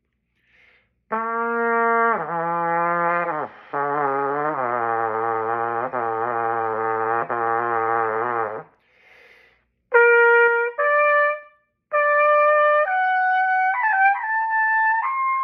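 Solo trumpet range practice: a low note steps down three times to a very low, wavering note held for about four seconds. After a pause, short detached notes climb higher step by step, with a shaky slide near the end.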